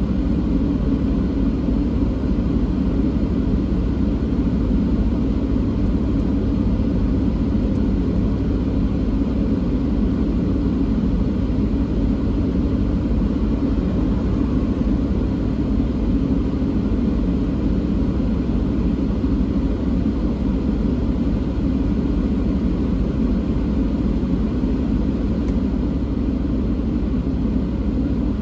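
Steady low rumble inside the cabin of a stationary car, its engine idling.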